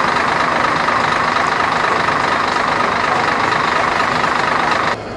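A vehicle running steadily: a loud, dense, even noise that cuts off abruptly near the end.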